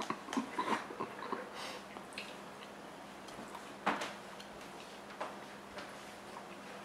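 Quiet room with a faint steady hum and a few scattered small clicks and taps; the sharpest click comes about four seconds in.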